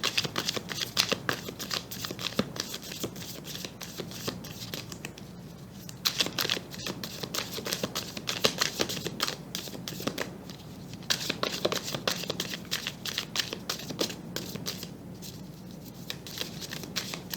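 A deck of tarot cards being shuffled by hand: bursts of quick papery flicks and clicks, with a few short lulls between the bursts.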